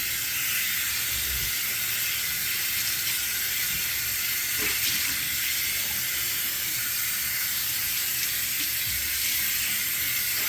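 Water running steadily from a tap in a strong, even hiss as something is rinsed out.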